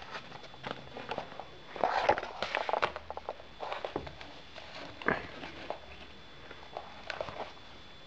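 Handling noise of a tablet in a folio case: scattered taps, clicks and rustles, busiest about two seconds in, with another sharp knock about five seconds in.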